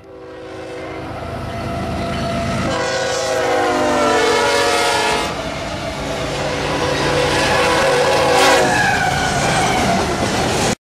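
BNSF freight train's locomotives passing close at speed with the air horn blowing: a long chord held for about five seconds, then another blast about 8.5 s in whose pitch drops as the lead unit goes by, over engine and wheel-on-rail rumble that grows as the train nears. The sound cuts off abruptly just before the end.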